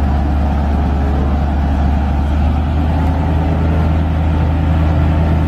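Flatbed crane truck's engine running steadily, a loud deep hum, with a higher tone edging up slightly near the end.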